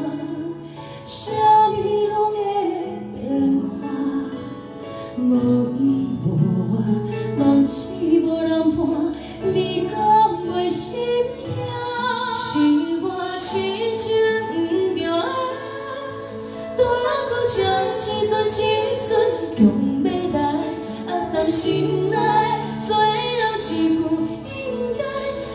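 Two women singing a duet live into handheld microphones over backing music, taking turns on lines and at times singing together.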